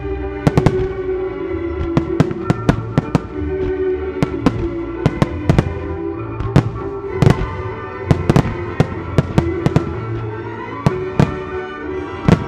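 Starmine fireworks shells bursting in a rapid, irregular string of sharp bangs, several a second, some in quick pairs. Music with long held notes plays underneath.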